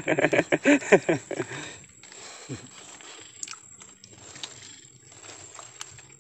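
A person's voice for about the first second and a half, then a quiet stretch with a few faint, soft clicks.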